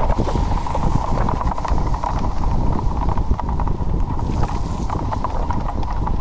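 Ride-along noise from a small electric vehicle moving over a wet street: continuous rattling and knocking of the vehicle and its camera mount, with wind rumble on the microphone and a steady high whine.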